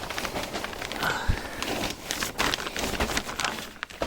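Rustling, scraping and crinkling of a person crawling across a crawl-space floor, with scattered small clicks and a dull thump about a second in.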